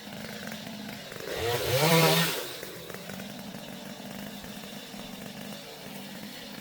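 Gas chainsaw idling, revved up once about a second and a half in, held briefly at high speed, then let fall back to idle.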